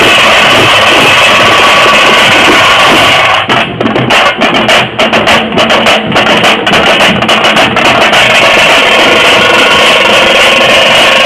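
Tamte frame drums played by a group in a loud, dense, continuous rhythm, the recording near overload. For a few seconds in the middle the sound breaks into separate sharp beats, then the dense drumming takes up again.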